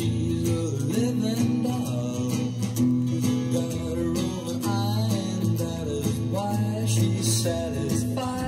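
A pop song with singing, guitar and bass, played from a vinyl record on a Sony PS-212 direct-drive turntable and heard through the Sony STR-6055 receiver's speakers.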